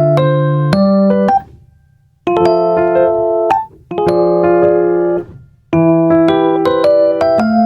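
Background music: electric piano chords played in short phrases, each ending with a brief pause.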